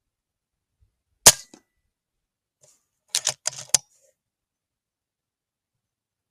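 A .22 FX Impact PCP air rifle fires one shot, a single sharp crack that dies away quickly, about a second in. About two seconds later comes a quick cluster of four or five clicks.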